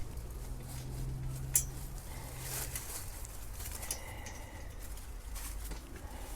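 Light metallic clicks and clinks of wrenches working steel nuts and bolts on a firewood rack frame, with one sharper click about a second and a half in. A low steady hum runs under the first three seconds.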